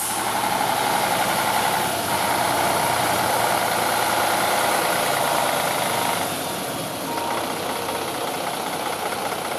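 2006 Sterling L9500 tri-axle truck's heavy diesel engine idling steadily.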